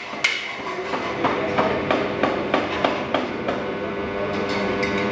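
Rapid hammering on metal, sharp knocks about three a second. A steady hum runs underneath in the second half.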